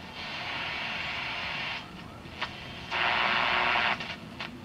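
Philips B5X43A vacuum-tube table radio on shortwave, its speaker giving two stretches of hissing static, the second louder, with a few short crackles between them as the dial is tuned. Reception is weak because the set has no antenna connected.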